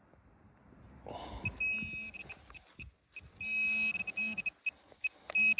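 Metal detector sounding on a buried target: a short electronic beep about two seconds in, a steadier tone lasting about a second in the middle, and another short beep near the end. The target proves to be a lead bullet.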